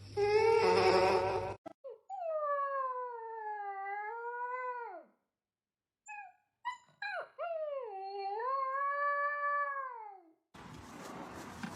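A dog howling: two long howls that rise and fall in pitch and drop away at the end, the second beginning about seven seconds in. A brief loud call comes before them, in the first second and a half.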